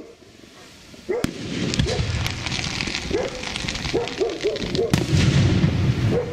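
Fireworks bursting: after a quieter first second, a sharp bang about a second in, then more bangs and a dense crackle of bursting shells. A dog barks repeatedly throughout.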